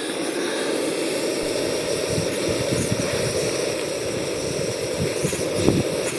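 Fire-Maple FMS-116T gas canister stove burner running at a medium flame, a steady roar, burning evenly. Wind gusts buffet the microphone underneath, with a brief knock near the end.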